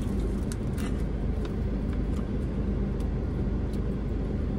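Steady low hum of a parked car running, heard from inside the cabin, with a few light crinkles of a paper food wrapper being handled.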